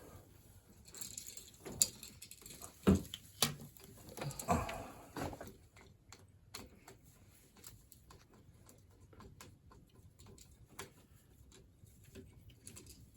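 Small clicks, taps and knocks of hands and a screwdriver working the terminal screws of an old wall outlet, with a few sharp knocks in the first half and only faint scattered clicks after.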